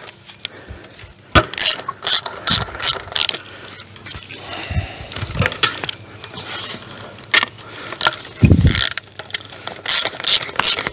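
Ratchet wrench clicking in short runs as a nut is tightened onto a bolt through the 2x6 boards of a homemade fence stretcher. There is a single dull bump late on.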